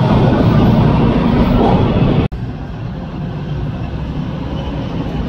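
TTC T1 subway train moving past close by, with a steady heavy rumble of wheels and motors. The sound cuts off abruptly about two seconds in, and a quieter rumble follows as another subway train approaches from a distance, growing louder near the end.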